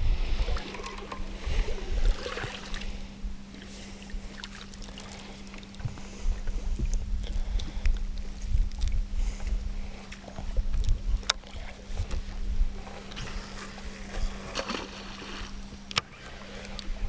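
Fishing-boat ambience on open water: uneven low rumble of wind on the microphone and water against the hull, over a steady low hum, with a few sharp clicks of fishing gear.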